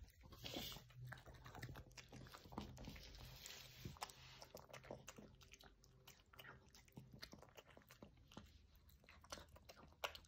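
A small dog eating soft food from a bowl: a run of faint, irregular chewing and smacking sounds.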